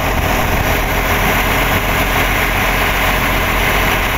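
Small launch boat's engine running steadily under way, with the rush of water along the hull.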